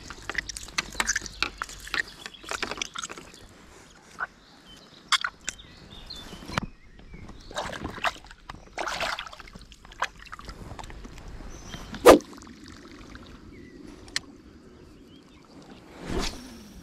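Water splashing and sloshing, with irregular clicks and knocks and one sharp knock about twelve seconds in.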